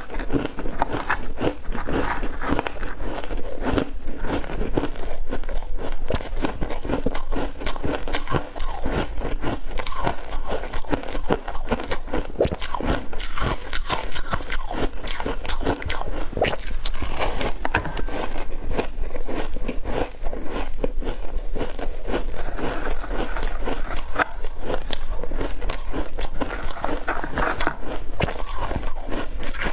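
Frozen ice chunks coated in powder being bitten and chewed close to the microphone: a dense run of sharp, crisp crunches in quick succession.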